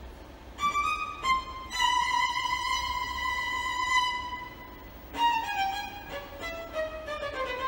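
Violin music: a few short notes, then a long held high note, then a quick run of notes falling in pitch.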